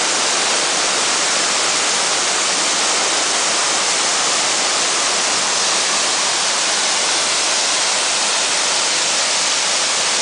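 Tall, narrow waterfall falling steadily onto rocks and a shallow plunge pool: a constant rushing hiss of water, more hiss than rumble.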